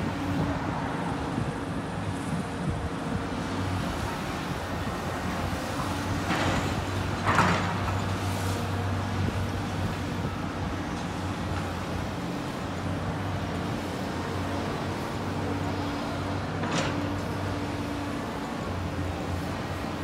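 Diesel engines of a Volvo excavator and a Cat backhoe running steadily as the excavator digs and loads dirt, with a few sharp knocks about six to seven seconds in, the loudest, and one more about seventeen seconds in.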